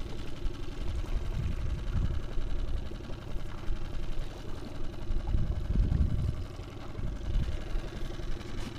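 Small outboard motor on an inflatable boat idling with a steady low rumble, with a few irregular louder low thumps over it.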